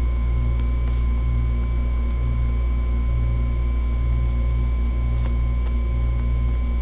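Steady low electrical hum with a faint steady whine above it. Part of the hum swells and fades slowly and evenly, about three times every two seconds.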